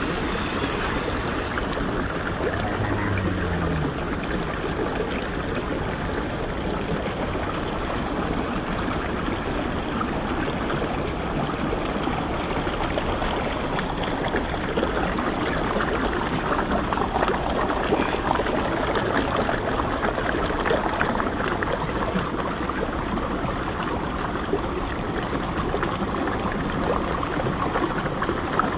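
Shallow rocky stream running over and around rocks: a steady rush and splash of flowing water.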